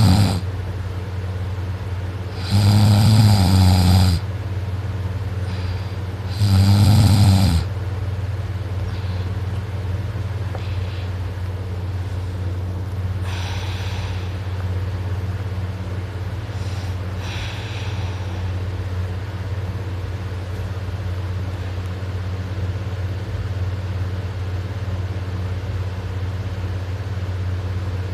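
A sleeping person snoring: two loud snores about four seconds apart in the first eight seconds, then only a couple of faint breaths, over a steady low hum.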